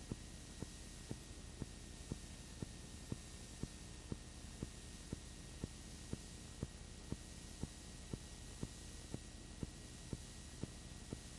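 Steady hiss and low hum with a faint click repeating evenly about twice a second: background noise on a transfer of silent home-movie film.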